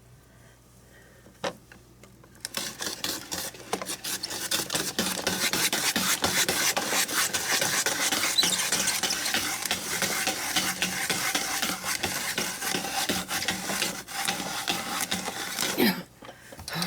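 Hand-operated vegetable slicer cutting through an English cucumber: a steady run of rapid scraping and slicing noise that starts about two and a half seconds in and stops just before the end.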